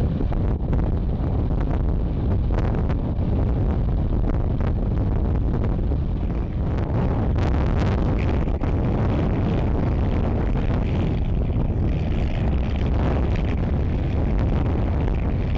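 New Holland tractor engine running steadily under load as it pulls a PTO-driven ScanStone de-stoner through the soil, with wind rumbling on the microphone.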